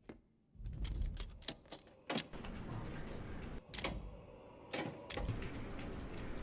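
A rapid, irregular series of sharp mechanical clicks and clacks over a low rumble, starting about half a second in.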